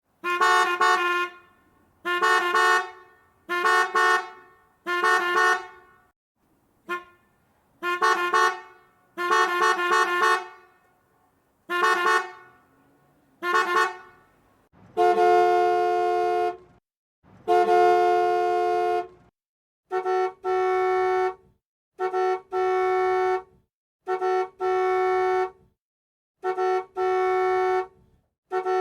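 Car horns honking in a series: short single and double toots with fading tails, then two long steady blasts of about two seconds each, then quick double beeps repeating about every two seconds.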